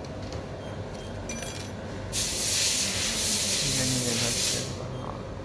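A hissing blast from an aerosol can, about two and a half seconds long, starting about two seconds in, over a steady low hum.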